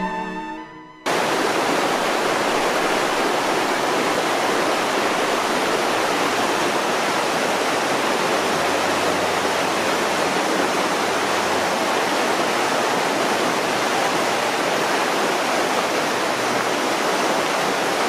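Music fades out, then about a second in a loud, steady rush of water in a mountain river cuts in abruptly and keeps on unchanged.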